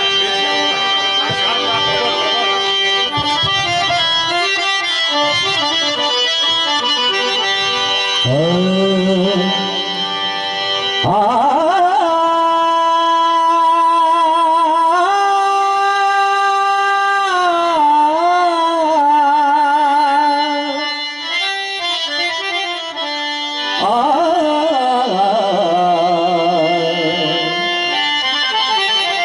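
Harmonium playing the instrumental opening of a Marathi bhajan, dense held chords and melody. From about eight seconds in, a sliding, wavering melody line rises into long held notes over it, twice more later on.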